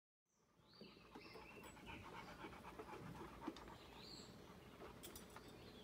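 A dog panting faintly and steadily, fading in just after the start, with short high bird chirps now and then.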